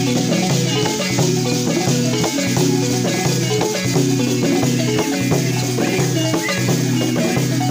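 Balafon, a West African gourd-resonated xylophone, playing a fast repeating pattern of notes, with net-covered gourd rattles shaken along with it.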